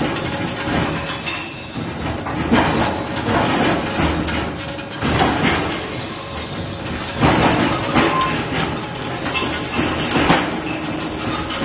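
Scrap rebar cutting machine running under load, its blades chopping steel bar into short pieces. A steady mechanical din is broken by irregular loud metal clanks, roughly one every second or two.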